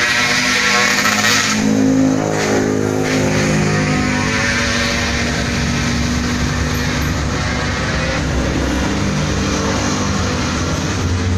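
A motor vehicle engine running steadily on the move, its pitch shifting a little, under a constant rush of road or wind noise.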